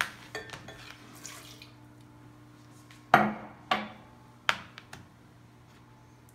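Glass and hard plastic kitchenware knocking and clinking on a stone countertop: a sharp knock at the start and a few light clicks, then three loud knocks about three, three and a half and four and a half seconds in. The blender is not running.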